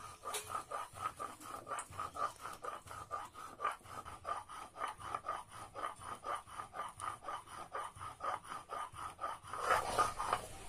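Stone roller (nora) rubbed back and forth over a flat grinding stone (shil), grinding whole coriander and cumin seeds to a fine wet paste: a rhythmic scraping at about four strokes a second.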